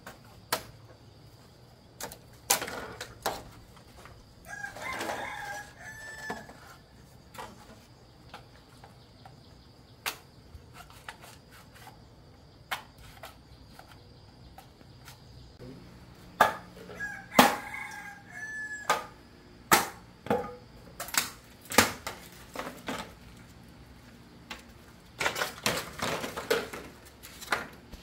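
A rooster crowing twice, about five seconds in and again some twelve seconds later, each crow lasting under two seconds. Sharp knocks and clatters are scattered throughout.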